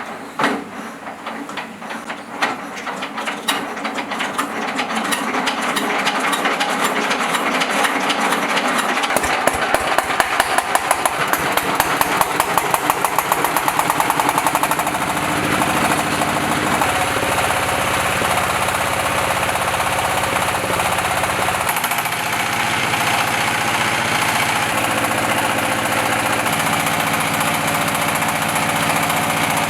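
Engine being hand-cranked, its ticking quickening as it spins up, then catching about fifteen seconds in and running steadily. It starts on the first crank.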